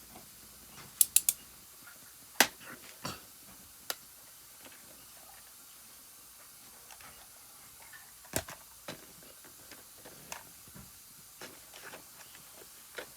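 Plastic clicks and knocks of a Rubik's cube being handled and turned: a quick cluster of sharp clicks about a second in, then single clicks spread out with quiet gaps between.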